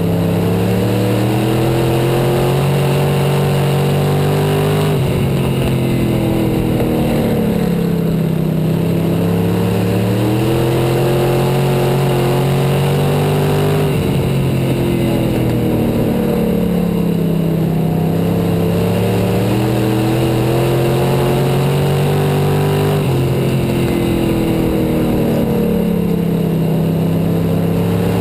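Onboard sound of an IMCA Sport Modified dirt-track race car's V8 engine at racing speed. Its pitch drops as the driver lifts into each turn and climbs again back on the throttle down the straight, about every nine seconds.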